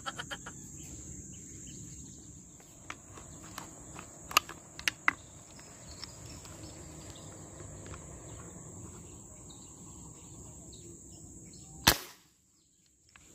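A single sharp shot from a homemade fishing airgun firing its spear into the water near the end, after a stretch of quiet outdoor background with a few faint clicks. The sound drops out to silence right after the shot.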